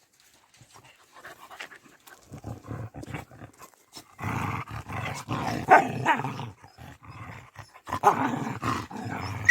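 Dogs play-fighting in two noisy bouts, about four and eight seconds in. The young dogs pester an older dog that fights back aggressively.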